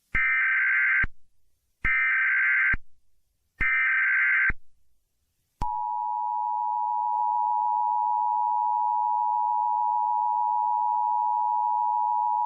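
Emergency Alert System tones: three short bursts of SAME header data, each about a second long with about a second between them, then the steady two-tone EAS attention signal (853 and 960 Hz together), which starts about five and a half seconds in and holds.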